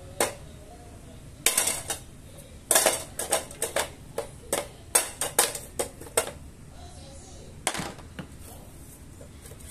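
Irregular light clicks and clinks of small hard objects knocking together, about twenty of them, bunched in the middle and thinning out near the end.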